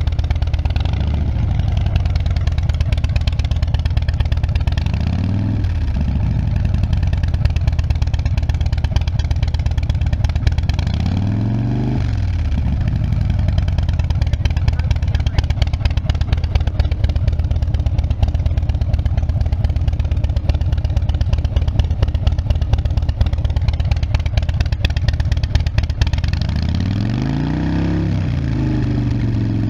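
2016 Harley-Davidson Dyna Wide Glide's Twin Cam 103 V-twin idling through Vance & Hines Big Radius exhaust pipes, with short throttle blips about a second in, around five and twelve seconds in, and a bigger rev near the end.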